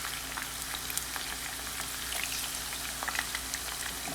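Onions and green peppers frying in hot oil in a pan: a steady sizzle with scattered crackling pops.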